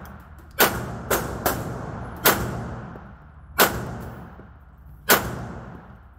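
Six gunshots, the first three in quick succession and the rest more slowly spaced, each followed by a short echoing tail.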